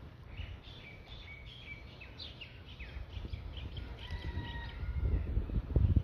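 Small birds chirping repeatedly, many short high chirps and quick sliding calls, with a few longer whistled notes about two-thirds of the way in. A low rumble underneath grows louder near the end.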